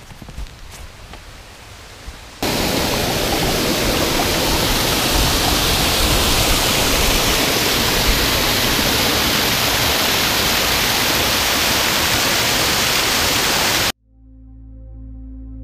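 A small mountain waterfall rushing over boulders: a loud, steady hiss of falling water that starts suddenly a couple of seconds in and cuts off abruptly near the end, where soft ambient music fades in.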